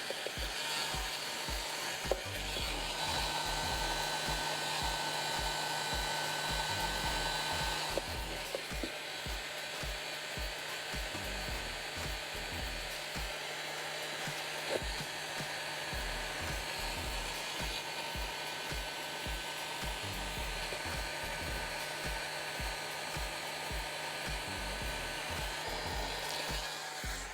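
Electric hot air gun running steadily, its fan blowing.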